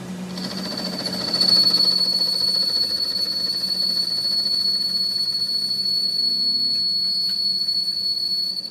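A steady high-pitched whine over a low hum, growing louder about a second and a half in and dropping away sharply near the end.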